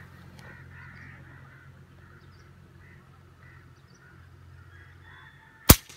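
Birds calling faintly over a steady low background. Near the end comes a single sharp crack: the RAW HM1000X pre-charged pneumatic air rifle firing at a bird in the trees, followed by a smaller knock.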